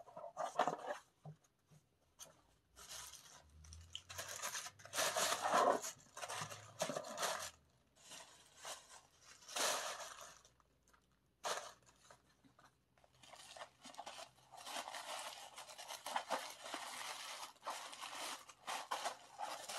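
Paper wrapping being handled and unfolded by hand: crinkling and rustling in irregular bursts with short pauses, becoming a longer, steadier rustle near the end.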